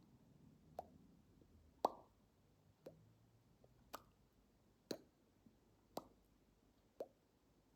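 Faint, evenly spaced plops, repeating about once a second.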